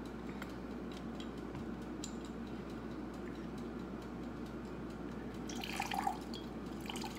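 Lemon juice dripping from a handheld citrus squeezer into a glass measuring cup, with a few faint clicks from the press. Near the end there is a brief, louder squelch as the lemon is pressed hard.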